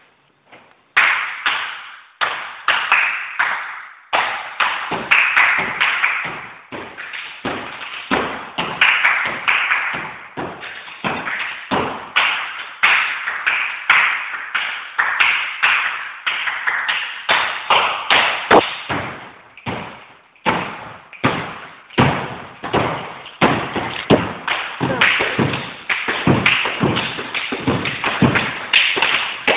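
Sharp hand slaps and foot stamps of two folk dancers on a wooden floor, in a fast, driving rhythm. The run starts about a second in, and each slap rings briefly in the hall.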